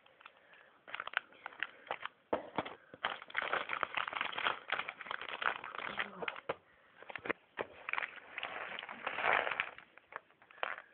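Scissors cutting open a plastic bag of Lego parts, the thin plastic crinkling and rustling with many sharp clicks throughout.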